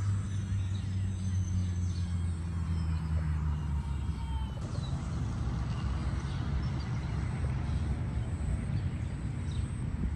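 Outdoor ambience: a steady low rumble with faint bird chirps over it. The background shifts abruptly about four and a half seconds in.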